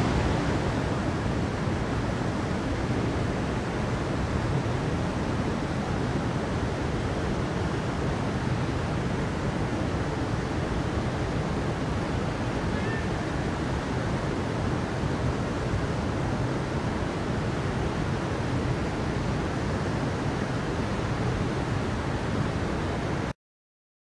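Waterfall rushing: a loud, steady roar of falling water that cuts off suddenly near the end.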